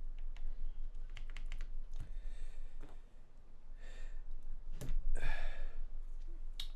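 Small plastic clicks and soft rubbing as lubed keyboard stabilizer parts are handled and fitted: a quick run of light clicks in the first second and a half, then scattered rubbing sounds and two sharper clicks, one about five seconds in and one near the end.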